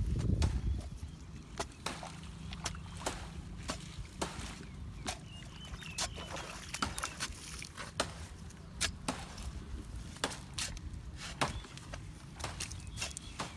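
Digging in a pit of damp earth: irregular sharp knocks and scrapes, about one or two a second, with wind rumbling on the microphone at the start and faint bird chirps.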